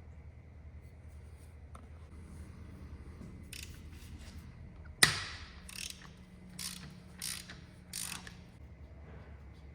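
A ratchet wrench working in a few short, raspy strokes, with one sharp metallic clank about five seconds in that rings on briefly, the loudest sound.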